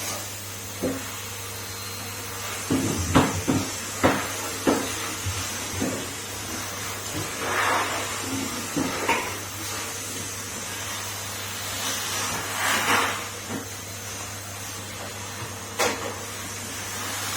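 Numatic Henry canister vacuum cleaner running with a steady drone, with several sharp knocks (a cluster about three to five seconds in and one more near the end) and a few short rushing swells.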